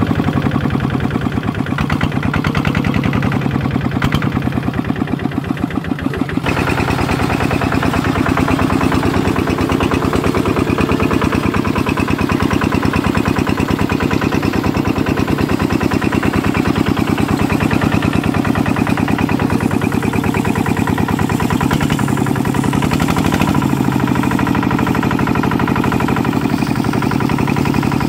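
A small engine running steadily with a fast, even chug, the sound of a power tiller at work. The upper end of the sound shifts slightly about six seconds in.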